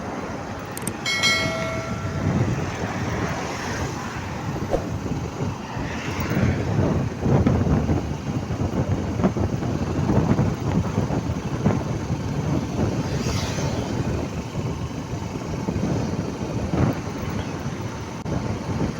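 Steady rumbling vehicle and road noise with wind buffeting the microphone; a horn sounds briefly about a second in.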